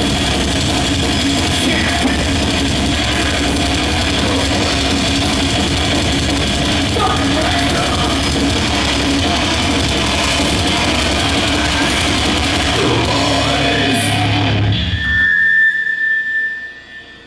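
A death/thrash metal band playing loud through a PA: drums and distorted guitars, with some yelled vocals. The band stops about fifteen seconds in, leaving a short high ringing tone as the sound dies away.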